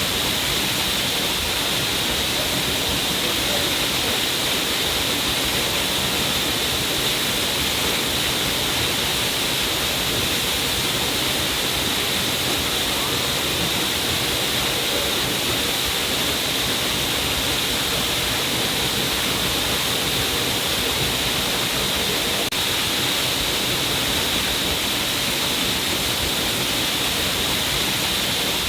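Water pouring steadily down a rock face, a continuous even hiss of falling and splashing water with no breaks.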